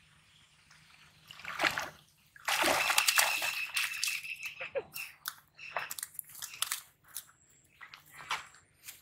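A hooked fish splashing hard at the surface as it is hauled out of a pond, loudest about two and a half seconds in. It is followed by scattered flapping and rustling as the fish thrashes on the grass bank.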